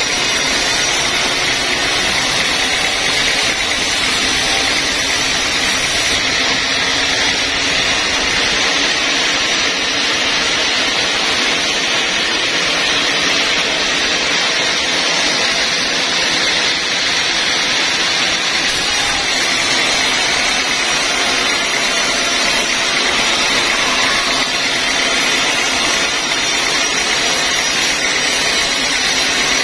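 Band sawmill running with a steady high noise as the blade rips lengthwise through a log. In a stretch in the middle the blade runs clear of the wood between cuts, and it cuts again near the end.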